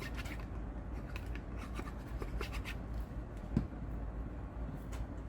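Light scratching and rubbing of glue being spread on paper, with small clicks of paper handling and a soft knock about three and a half seconds in.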